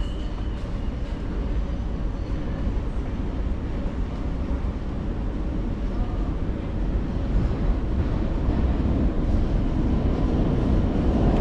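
Subway train approaching the platform through the tunnel, a steady rumble growing slowly louder as it nears.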